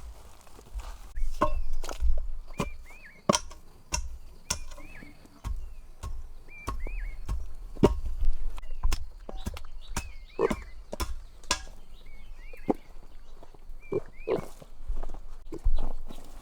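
Irregular knocks and thuds, with a short high chirp that repeats every second or two.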